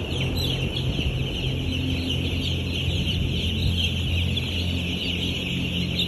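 A shed full of three-day-old broiler chicks peeping all at once, a dense high-pitched chorus of overlapping calls, over a steady low hum.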